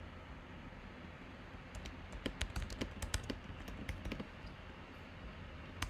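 Typing on a computer keyboard: a quick run of key clicks starting about two seconds in and lasting about two seconds, then one more click near the end.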